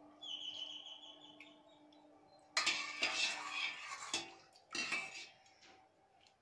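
Metal ladle clinking and scraping in a stainless steel pot while scooping meat broth. A short ringing metal tone comes near the start, then a longer clatter about two and a half seconds in and a shorter one near five seconds.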